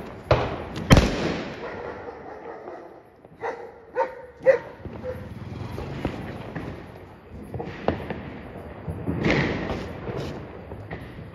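A firecracker goes off with a loud bang about a second in, followed a few seconds later by a dog barking three times in quick succession. More firecracker bangs and crackling follow near the end.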